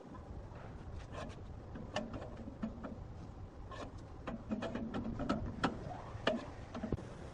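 A run of irregular sharp knocks and clicks from hard objects, thickest near the middle and end, over a low steady rumble.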